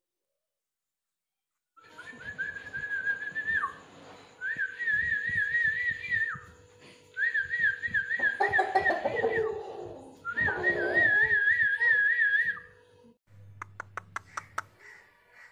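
A high warbling whistle in four phrases of about two seconds each, the pitch wavering quickly and dropping at the end of each phrase. A rougher, lower sound runs under the third and fourth phrases, and a few sharp clicks come near the end.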